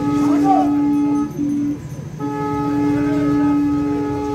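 A conch shell (shankha) blown in long, steady single notes, with a short break about a second in and a breath-length gap near the middle, over a low murmur of crowd voices.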